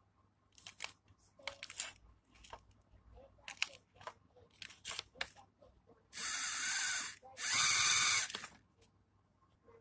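A toy car's small electric motor whirring as its wheels spin in place, in two bursts of about a second each, beginning about six seconds in, with scattered light clicks before them.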